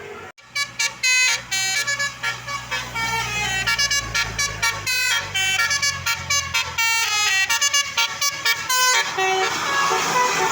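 Tour bus's Basuri 'telolet' multi-tone horn playing a quick melody of short pitched notes for about eight seconds, over a low engine hum. A steady rushing noise takes over near the end.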